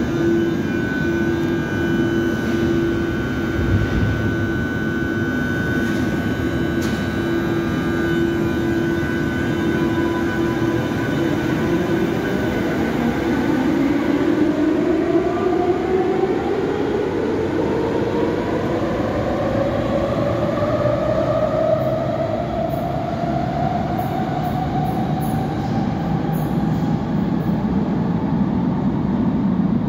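Athens Metro Line 2 train at the platform with a steady electrical hum, then pulling out from about twelve seconds in, its traction motors whining in a slowly rising pitch as it accelerates away.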